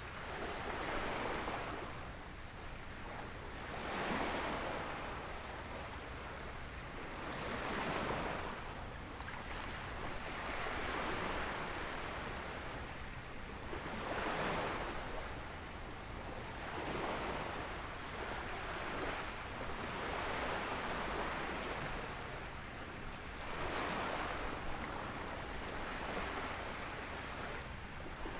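Small waves breaking and washing up on a beach, surging every few seconds.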